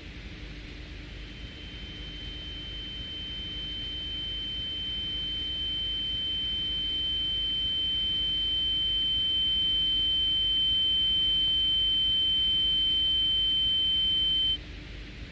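A single steady high-pitched electronic beep tone over a constant hiss, growing gradually louder and cutting off suddenly shortly before the end. A faint low hum runs underneath.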